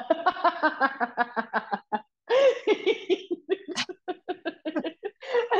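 Women laughing in quick pulses, with a short break about two seconds in.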